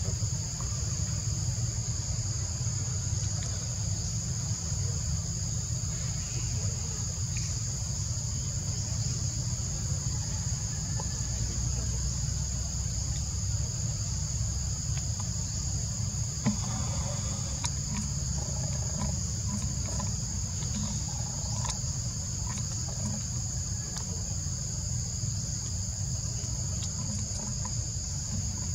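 Insects droning steadily in two high-pitched bands, over a continuous low rumble.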